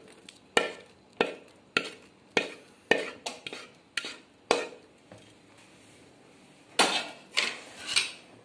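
A ladle knocking and scraping against a metal kadai as thick kurma is scraped out into a plastic container, about eight sharp knocks at an even pace. After a short pause there are a few longer scrapes of metal on metal near the end.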